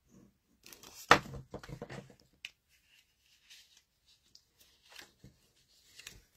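Paper rustling and sliding as a piece of patterned paper is picked up and pressed down onto a card, with a sharp knock about a second in, then a few light ticks and rustles.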